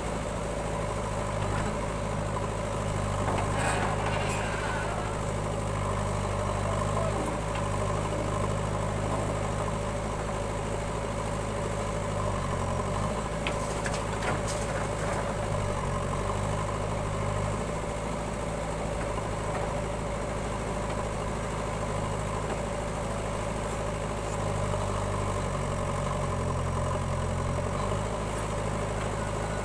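Diesel engine of a JCB backhoe loader running steadily as the rear digging arm works, its note dipping and recovering several times as the hydraulics take load. A few short knocks partway through as the bucket empties soil into the tractor trolley.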